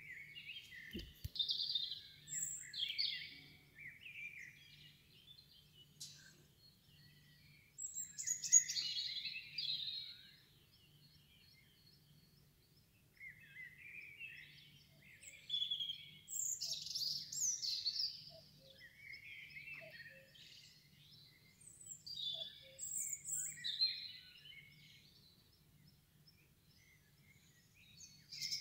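Bird song: bursts of high chirps and warbling phrases lasting a few seconds, with quieter pauses between them, over a faint low hum.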